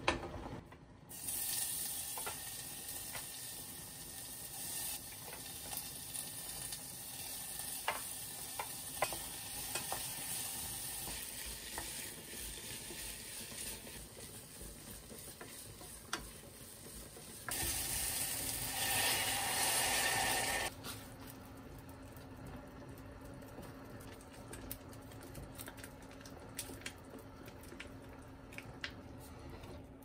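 Food sizzling in a frying pan while a utensil stirs it, with sharp clicks of the utensil against the pan. The sizzle starts about a second in and gets louder for about three seconds past the middle, then settles to a quieter hiss with scattered clicks.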